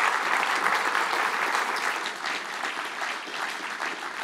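Audience applauding, a little softer after about two seconds.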